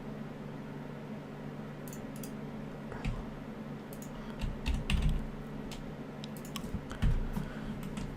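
Computer keyboard and mouse being worked: scattered, irregular key and button clicks, with a few heavier thuds, over a steady low hum.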